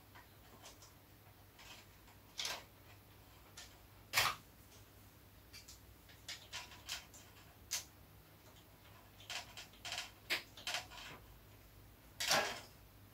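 Scattered light clicks, taps and short scrapes of hands and a small tool working the wiring and terminals of a ceiling fluorescent light fitting. The sounds come at irregular moments, the loudest about four seconds in and near the end.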